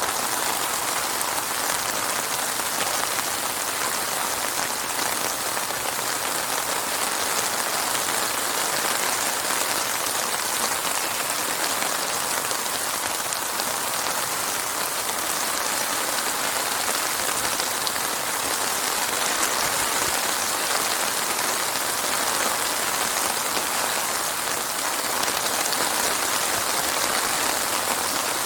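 Steady, even rainfall with no thunder.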